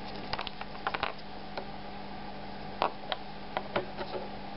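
Handling noise from a small circuit board and its attached wires being turned over in the fingers: a cluster of light clicks and taps in the first second, then a few more scattered ones near the end, over a steady low hum and hiss.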